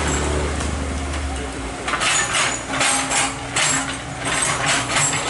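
Hydraulic excavator running with a steady engine hum, joined from about two seconds in by a run of short harsh noises, roughly two a second, as it works.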